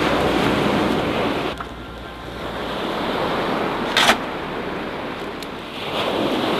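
Surf breaking and washing over a shingle beach, swelling and fading every few seconds, with a single sharp knock about four seconds in.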